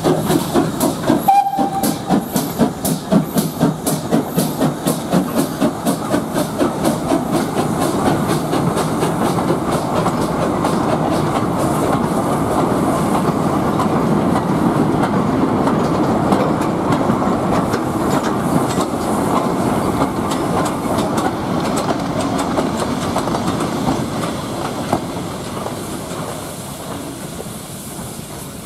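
GWR 5700 class pannier tank locomotive working a goods train past, its exhaust beating rhythmically at first, then the rumble and clicking of the freight wagons rolling over the rail joints, fading near the end. A short high note sounds about a second and a half in.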